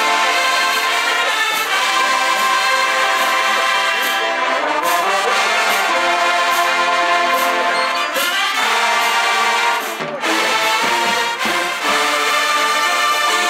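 Marching band in the stands playing, the brass (trombones and trumpets) carrying held, full chords, with a brief pause about ten seconds in.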